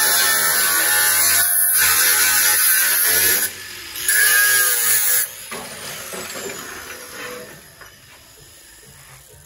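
Angle grinder with a cut-off wheel cutting through rusted car-body sheet metal, a loud steady whine-and-grind. It stops about three and a half seconds in, runs again for about a second, then winds down and fades.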